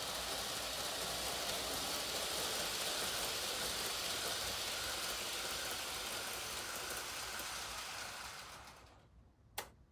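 TOMIX N-gauge model train running along its track: a steady whirring rattle of small wheels on rails and motor that fades out near the end. One sharp click follows shortly before the end.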